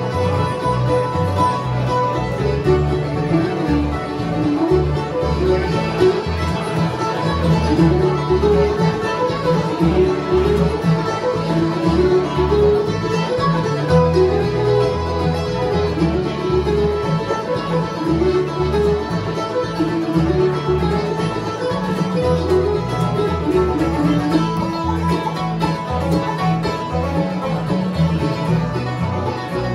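Live acoustic bluegrass band playing an instrumental tune: upright bass, mandolin, acoustic guitar, banjo and accordion, with a picked melody repeating in short phrases over a steady bass pulse.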